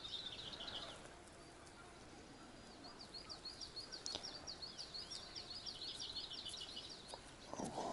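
A small songbird singing faintly: a quick run of high, repeated chirping notes. It gives a short phrase at the start and a longer phrase from about three seconds in until shortly before the end.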